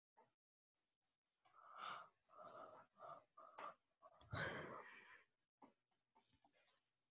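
Faint, muffled sounds of a person close to a microphone: a few quiet, unclear murmured syllables, then a breathy exhale onto the microphone a little past four seconds in.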